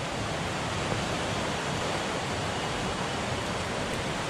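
Steady, even rush of river water running through rapids.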